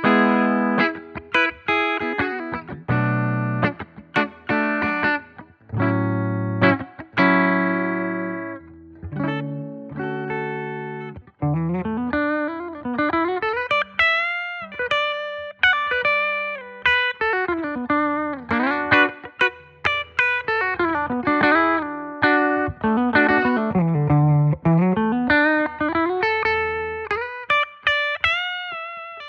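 Donner Hush-X headless electric guitar played clean with its pickups in active mode. For about the first eleven seconds it plays chords. After that comes a single-note melody that slides up and down the neck, ending on a ringing held note.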